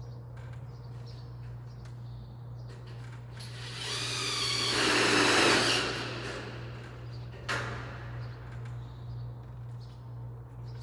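Screw gun driving a screw into light-gauge steel stud framing, one run of about two seconds near the middle, followed by a sharp click. A steady low hum sits underneath.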